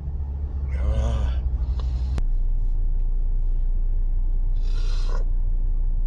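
Steady low rumble inside a car cabin, with a short breathy vocal sound about a second in and a brief hissing breath near five seconds.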